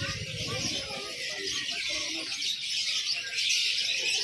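Many caged songbirds chirping and twittering at once in a dense chorus. A low, rapid throb is underneath at first and fades out about a second in.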